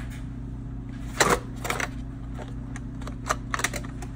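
Feeler gauge set being handled, giving a few sharp clicks and clacks of its blades and holder. The loudest comes about a second in and a quick cluster follows near the end, over a steady low hum.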